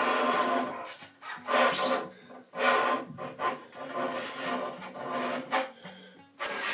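Stainless steel cable pulled through holes in a wooden frame, rasping and rubbing against the wood in a series of short pulls as the slack is taken out.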